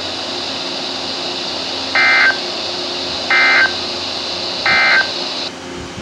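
Weather radio sounding the Emergency Alert System end-of-message code: three short, identical bursts of buzzing digital data about a second and a half apart, marking the close of the flash flood warning. A steady hiss behind them cuts off near the end.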